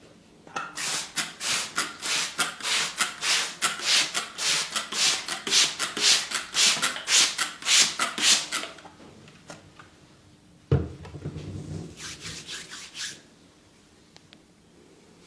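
Hands rubbing vigorously and rhythmically over a person's head and hair during a head massage, about four quick strokes a second. Near the end there is a single thump, followed by a few seconds of softer rubbing.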